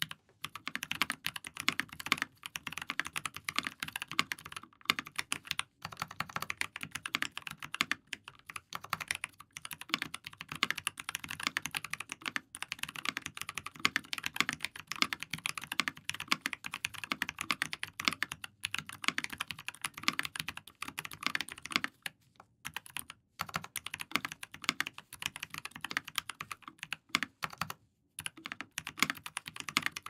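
Fast, continuous touch-typing on a compact mechanical keyboard with Zealio V2 67g tactile switches, lubed with 205g0 and fitted with TX 0.125 films, under GMK ASCII doubleshot ABS keycaps: a dense stream of keystroke clacks, broken by a couple of brief pauses about three-quarters of the way through.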